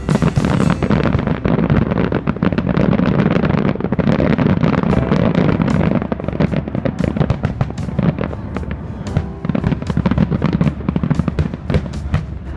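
Aerial fireworks bursting overhead: a dense, rapid barrage of bangs and crackling reports, many a second, throughout.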